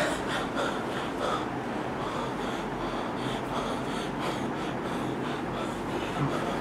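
A man gasping and wheezing for breath in quick, repeated ragged breaths, as if choking.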